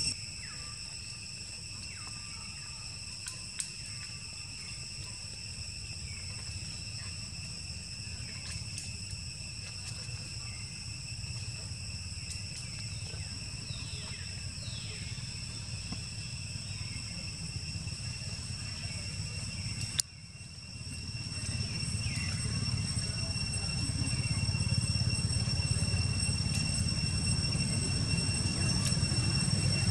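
Steady high-pitched drone of insects, several tones held together, over a low rumble. A click about two-thirds of the way in, after which the low rumble grows louder.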